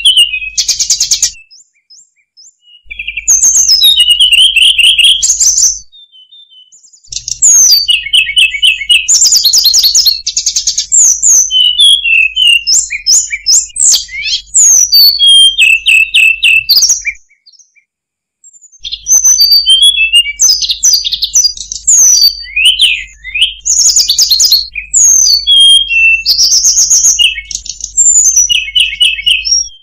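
Hill blue flycatcher song: long runs of rapid, varied high whistles and trills, broken by short pauses about two, six and eighteen seconds in.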